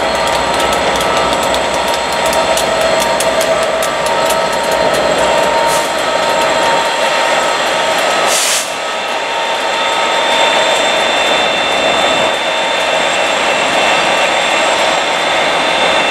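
Diesel locomotive-hauled train moving through the station, its wheels clicking rapidly over rail joints under a steady engine whine. About eight and a half seconds in the sound breaks off and gives way to a Class 67 diesel locomotive standing at the platform with its engine running and a steady high whine.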